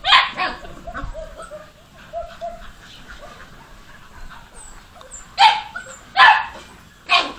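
Dachshund barking at a cat: one bark right at the start, a quieter stretch, then three barks in quick succession in the last two seconds.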